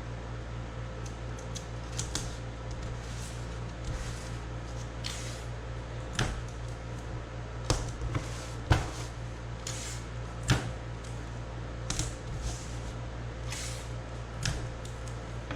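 Gorilla Tape being pulled off the roll and pressed down on a tabletop: several short rasping pulls among sharp taps and knocks, about a dozen in all, over a steady low hum.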